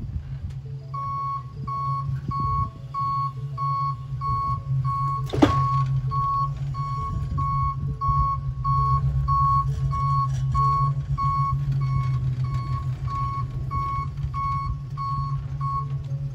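Hi-rail utility truck's backup alarm beeping steadily, about one and a half beeps a second, over the truck's steady engine hum. A single sharp clank rings out about five seconds in.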